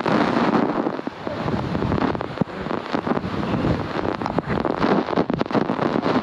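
A waterfall's falling water close by, a loud, steady rush with crackling where spray and wind hit the microphone.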